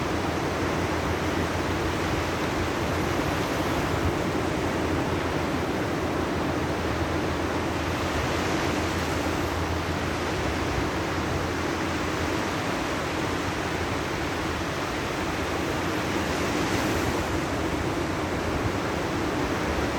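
Sea surf washing on the shore: a steady rushing wash that swells gently a couple of times, with some wind on the microphone.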